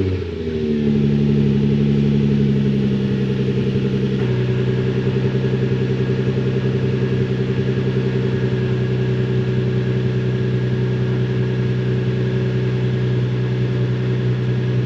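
Car engine idling through a 3-inch catback exhaust with an ISR Y-pipe and stock headers and catalytic converters. It has just been started cold: the idle settles in the first second, drops slightly about four seconds in, then runs steady.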